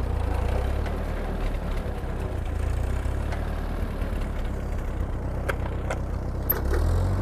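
1948 Ford 8N tractor's four-cylinder flathead engine running steadily with the PTO engaged, turning a Woods M5 rotary cutter. A few faint clicks come in the second half, and the engine picks up slightly just before the end.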